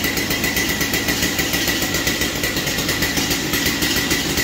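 Stihl MS 661 chainsaw's two-stroke engine idling steadily with an even, rapid pulse.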